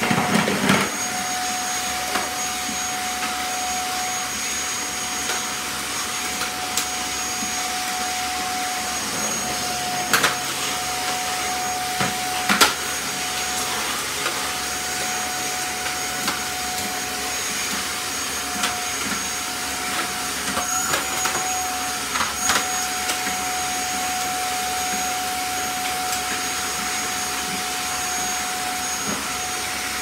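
Yellow canister vacuum cleaner running steadily with a constant whine as its floor nozzle is pushed over tiles, with a few short knocks about ten and twelve seconds in.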